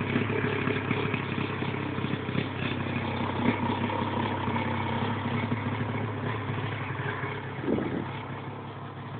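Lynx snowmobile engine idling steadily, with light knocks of handling noise.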